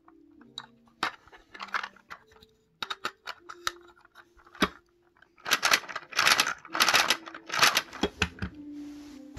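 Plastic LEGO Technic pieces clicking and rattling as a small model engine is handled and turned over by hand, with a run of louder clattering about two-thirds of the way through. Soft held tones of background music play underneath.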